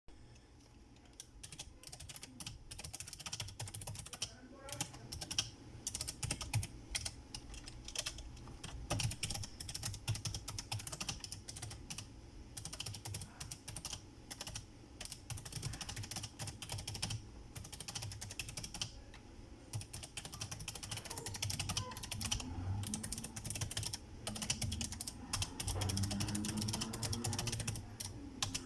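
Typing on a Razer Ornata Chroma mecha-membrane keyboard: quick runs of key clicks with short pauses now and then.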